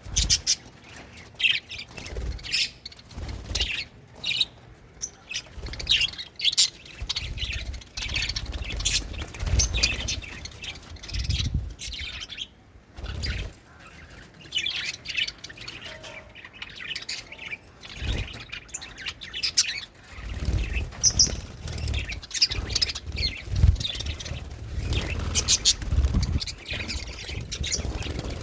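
Budgerigars chirping and chattering in quick, overlapping short calls throughout, with occasional low thuds.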